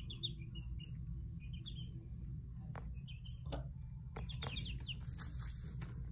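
Chicks about five weeks old peeping, with short high chirps scattered through, a few light taps among them, over a steady low hum.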